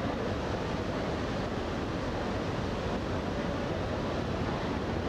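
Steady rush of wind and sea water on the deck of a moving ferry, with wind blowing on the microphone.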